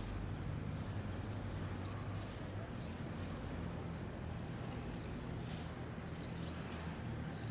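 Kittens eating from a metal bowl: short, scratchy rattles of food against the bowl, repeating a few times a second, over a steady low rumble.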